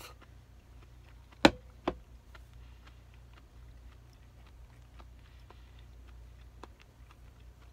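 A plate set down on a low table: two sharp knocks about a second and a half in, half a second apart, the first much louder. Then scattered light clicks of chopsticks against the plate over a steady low hum.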